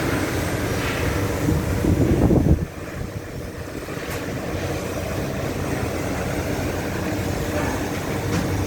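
Steady mechanical rumble and hiss of running machinery, louder for the first two and a half seconds and then dropping abruptly to a lower steady level.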